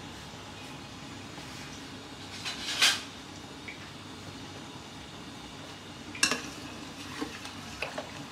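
Metal spoon clinking against a steel pot of boiling water and soaked basmati rice: two sharp clinks about three and six seconds in, then lighter taps as the rice is stirred, over a steady low background noise.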